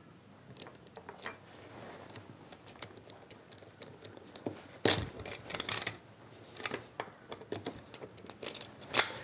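Spiral ratchet (Yankee-style) push screwdriver driving a slot-head screw into timber: a run of irregular clicks and scrapes, with louder bursts about five seconds in and again near the end.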